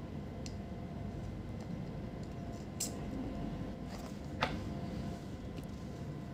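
Small clicks and taps from handling a switch-mode power-supply circuit board and soldering iron while desoldering its shorted diodes, over a steady low hum. The sharpest click comes about four and a half seconds in.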